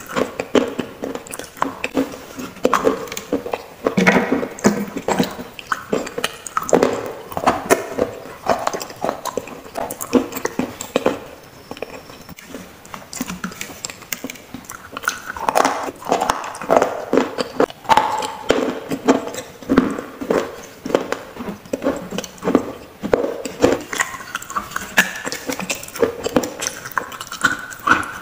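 Close-up crunching as pieces of a baked clay piggy bank (gullak) are bitten off and chewed: irregular crackly crunches, easing off for a few seconds around the middle.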